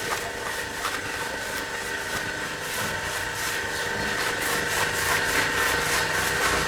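A machine running steadily, with a constant whine over a hiss, growing slightly louder.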